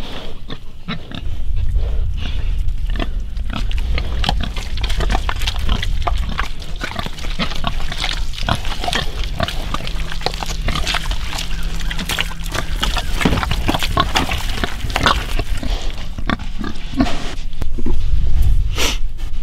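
Hogs grunting and rooting, many short grunts and snuffles, over a low rumble on the microphone.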